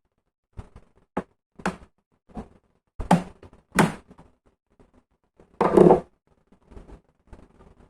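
Plastic clips of a Dell Inspiron 3421 laptop's bottom cover clicking and snapping as the cover is pried off: a string of sharp clicks, two louder snaps about three and four seconds in, then the loudest, a half-second clatter just before six seconds.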